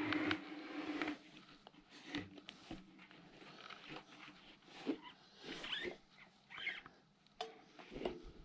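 Small metal bicycle hub parts being handled and fitted by hand: irregular light clicks, taps and short scrapes.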